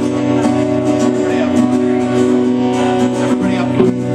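A rock band playing live and loud: held electric guitar chords over bass and drums, with steady drum and cymbal hits.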